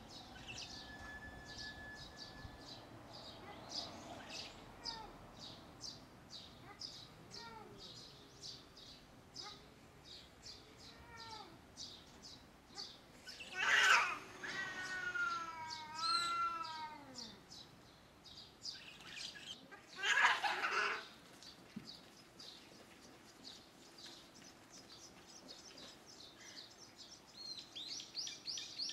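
Two cats in a standoff growling with low, wavering yowls, then two loud hissing outbursts, about fourteen and twenty seconds in, the first followed by a long rising and falling yowl. Small birds chirp rapidly in the background.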